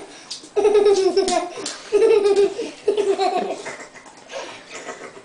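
Young child laughing in high-pitched, breathy bouts: three bursts in the first few seconds, then quieter.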